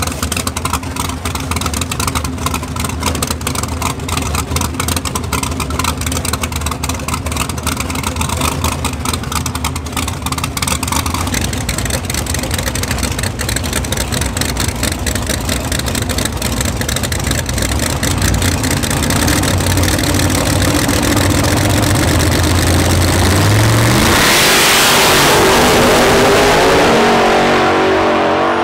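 Drag racing car engine running loudly with a lumpy, pulsing idle, then revving higher and launching at full throttle near the end, which is the loudest part.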